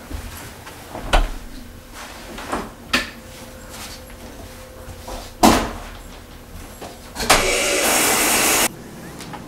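A door and bathroom fittings handled with a few knocks and clicks, the loudest about five and a half seconds in. About seven seconds in, a shower is turned on and water sprays with a steady hiss for about a second and a half, then cuts off abruptly.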